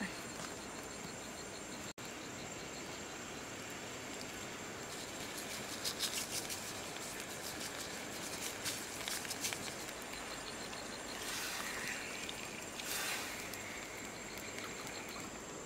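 Crickets chirring steadily, with crackling and hissing from a whole fish cooking in a wok, the crackles clustering about a third of the way in and a hiss swelling a little after the middle.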